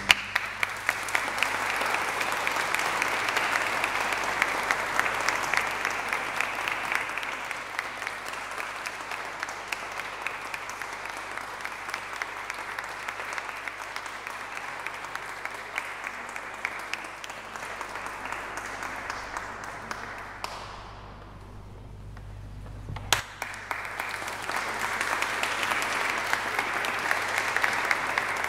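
Audience applauding after a sacred song ends. The clapping dies away about three-quarters of the way through, and after a sharp click it starts up again near the end.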